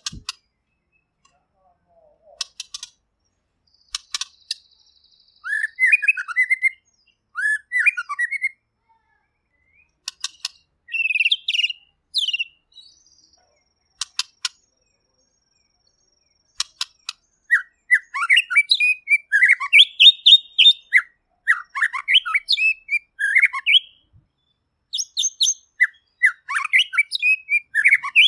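White-rumped shama singing: bursts of fast, varied whistled and chattering phrases separated by short pauses, with sharp clicking notes in between. From about two-thirds of the way through, the song runs almost unbroken.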